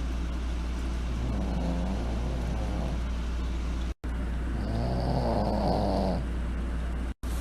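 An animal snoring: two drawn-out pitched snores, the second louder, over a steady low hum. The sound cuts out briefly between them.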